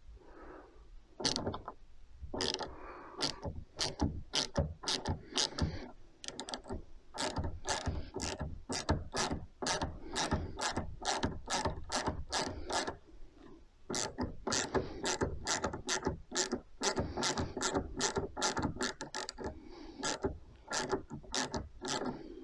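Ratchet tool with a T15 Torx bit clicking as it turns the small screw inside the Porsche Cayenne's door edge, loosening the outer door handle's retaining mechanism. Sharp ratchet clicks, about two to three a second, come in runs with brief pauses as the tool is reset.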